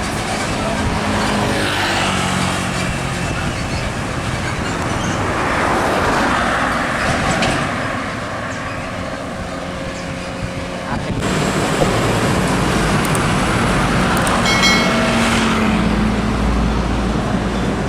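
Heavy highway traffic: trucks and other vehicles passing, with steady engine hum and tyre noise that swells and fades as they go by.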